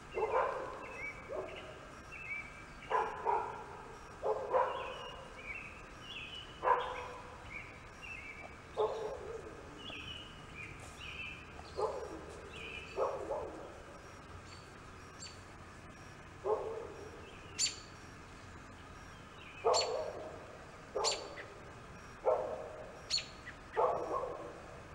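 A dog barking in short single barks at irregular intervals, about fifteen in all, with small birds chirping between the barks.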